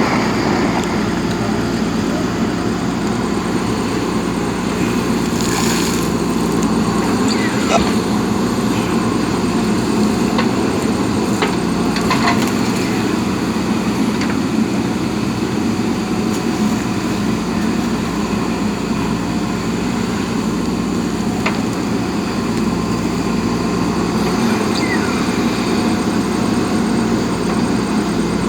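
JCB backhoe loader's diesel engine running steadily under working load, its pitch shifting slightly a few times, with a few light clicks over the drone.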